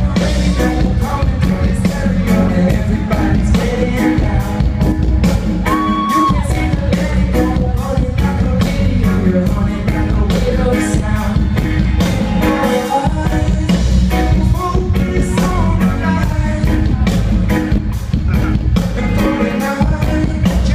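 Live reggae band playing at full volume: electric guitar, bass, keyboards and drums keeping a steady beat, with a sung vocal over it.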